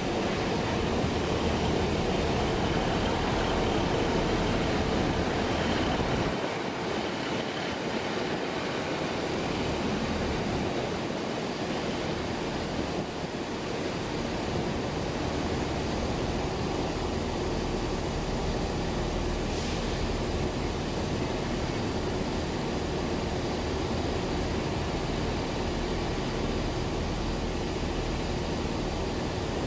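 Freight train passing: a steady rumble and rolling noise of wagons on the rails that hardly changes.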